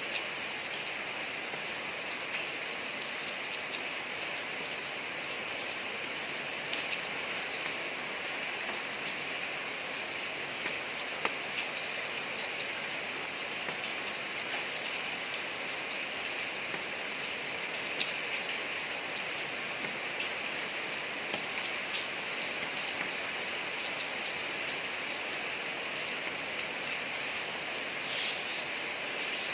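Steady rain falling on a street, an even hiss with scattered sharper drip ticks.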